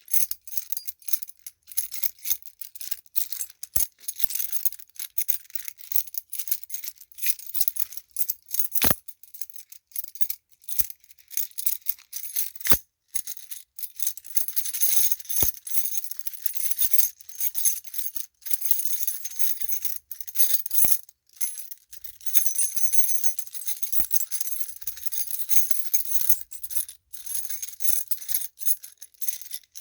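A bunch of metal keys on a key ring jangling, shaken in irregular bursts of bright clinks with short pauses between them.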